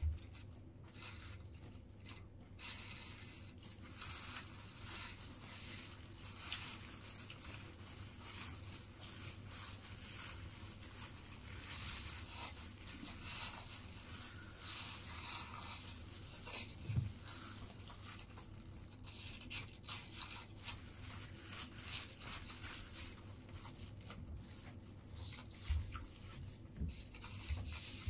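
Crinkling and rustling of a clear plastic food glove and a paper food wrapper as rice is handled and eaten by hand, with chewing and small clicks throughout.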